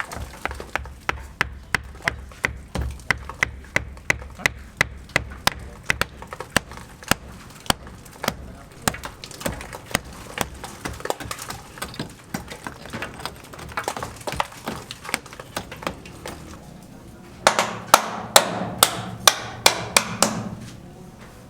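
Repeated hammer blows, struck steadily about twice a second, then a louder, quicker run of blows for a few seconds near the end.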